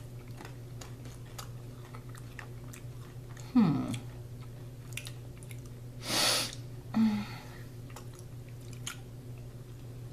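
People chewing crisp, sauce-coated sauce-katsu rice crackers, small crunches running on throughout. A short hum falling in pitch, the loudest sound, comes about three and a half seconds in, and a brief hiss like a breath about six seconds in.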